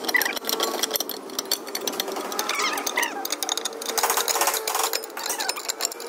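Fast, even mechanical clicking of a hand tool turning the rear brake caliper bolts.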